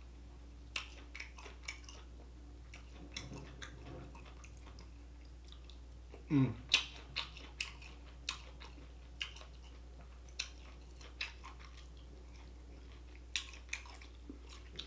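Close-up mouth sounds of a person eating: chewing with scattered wet lip smacks and clicks. About six seconds in there is a brief low falling sound, the loudest moment.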